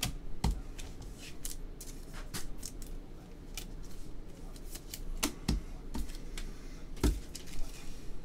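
Trading cards handled by gloved hands: cards slid and flicked off a stack, making irregular light clicks and rustles, with three heavier taps at about half a second, five and a half and seven seconds in.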